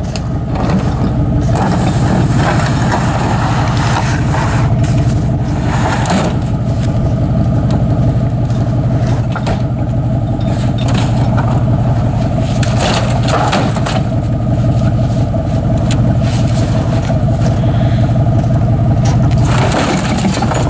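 Pickup truck engine running steadily, with a few short knocks and scrapes over it.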